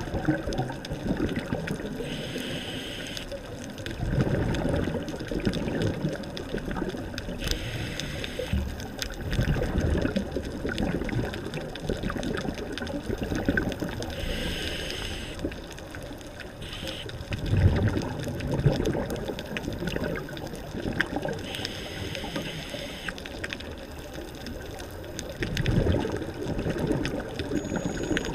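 A scuba diver's regulator breathing underwater: a hissing inhalation through the regulator, then a low bubbling rush of exhaled air, repeated about four times at a slow, even pace.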